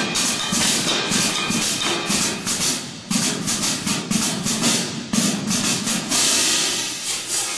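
A drum and bugle corps cymbal line playing pairs of marching crash cymbals. Rapid strikes run together into a dense, shimmering metallic wash, with a short drop about three seconds in and a steadier held wash a little before the end.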